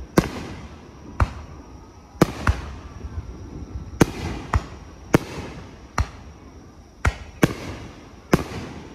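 Aerial firework shells bursting in the sky, about eleven sharp bangs at uneven intervals, each followed by a rolling echo.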